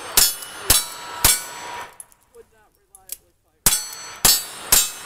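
Handgun shots in two quick strings of three, about half a second apart, with a pause of about two seconds between the strings; each shot is followed by the ring of a struck steel target.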